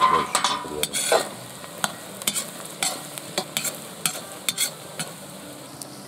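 A metal slotted skimmer scraping and knocking against a cast-iron kazan, stirring onions and pork cracklings frying in fat. A steady sizzle runs underneath.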